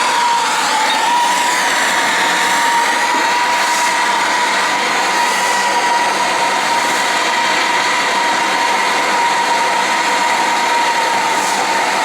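Plumber's soldering torch burning steadily, a constant hiss with a whistling tone, as it heats a pipe joint for soldering.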